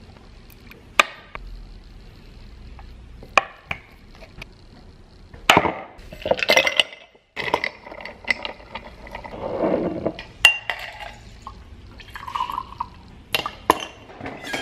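Cocktail being mixed in glassware: a string of sharp glass clinks as ice cubes go into a glass, with liquid poured in near the middle.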